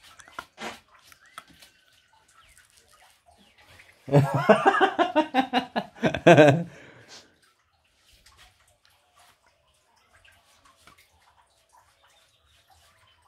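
Faint splashing and dripping of water as a wet dog is shampooed and washed. About four seconds in comes a loud, wavering vocal sound lasting about three seconds, breaking into quick pulses near its end.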